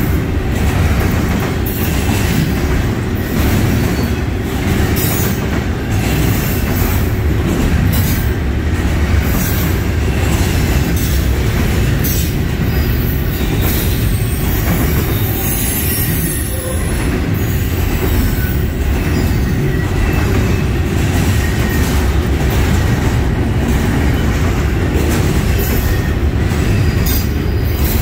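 Norfolk Southern double-stack intermodal freight train rolling past: a loud, steady rumble and clatter of the loaded well cars' wheels on the rails, unbroken throughout.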